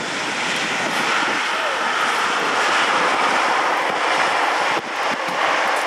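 Twin GE90 turbofan engines of a Boeing 777 freighter on landing: a loud, steady jet rush that swells over the first couple of seconds, with a brief dip in level a little before the end.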